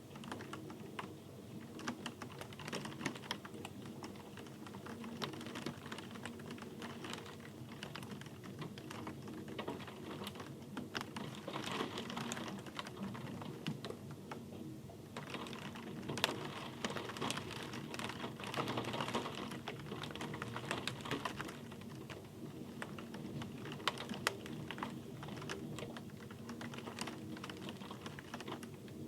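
Rain falling as a dense, uneven patter of separate drops ticking over a soft hiss. The patter swells a little twice in the middle.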